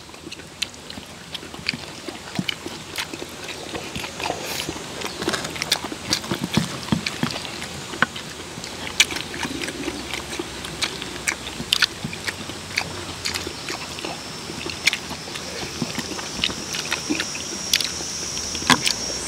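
People eating: chewing, with frequent sharp clicks of chopsticks against stainless steel bowls. About two-thirds of the way through, a steady high-pitched insect chirring comes in and continues.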